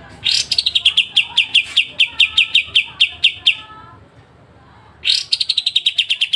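Kapas tembak singing its sharp 'besetan' phrase: a loud, fast run of repeated piercing notes, each dropping from high to a steady pitch, for about three seconds. A second, even faster run starts near the end.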